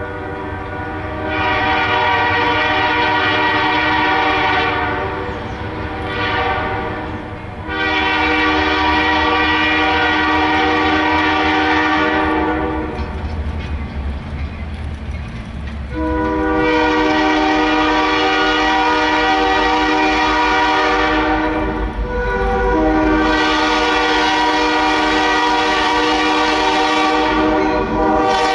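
EMD diesel locomotive's multi-chime air horn sounding four long blasts for a grade crossing, the last two split by only a brief break. Under the horn, a low diesel engine rumble grows louder near the end as the locomotives draw close.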